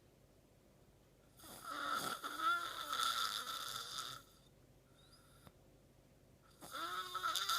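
Man snoring in his sleep: one long snore about a second and a half in, a quiet pause, then the next snore starting near the end.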